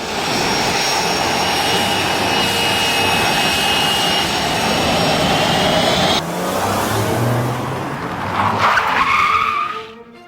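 Car sound effect with tyres skidding: a long noisy rush with a high held squeal, changing about six seconds in, then another squeal that rises and falls near the end.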